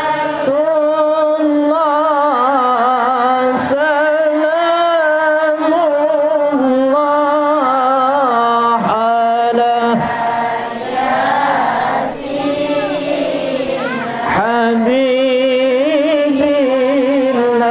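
Solo male voice singing sholawat, an Islamic devotional song, into a microphone, in long held notes with wavering ornaments.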